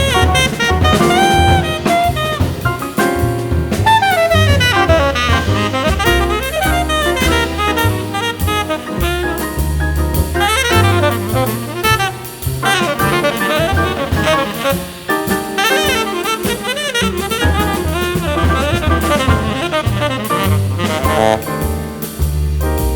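Background music: jazz with a prominent saxophone melody over bass and drums.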